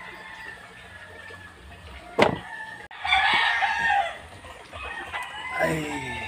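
Roosters crowing, with one loud crow about three seconds in and another near the end, and a sharp knock just before the first loud crow.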